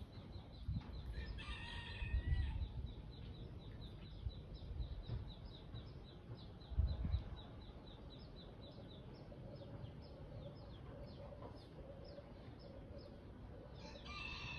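A rooster crowing, about a second in and again starting near the end. Underneath runs a steady series of high, short chirps repeating about three times a second, with a low rumble.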